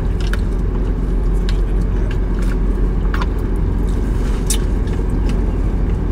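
Steady low rumble of a car idling, heard from inside the cabin, with scattered light clicks and taps from handling a drink cup and straw.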